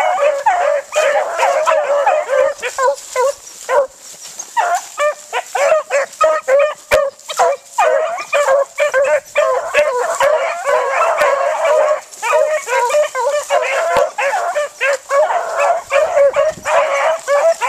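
A pack of beagles barking and yipping in many overlapping voices as they hunt a rabbit's scent. The calls come thick and fast, thinning briefly about four seconds in and again around twelve seconds.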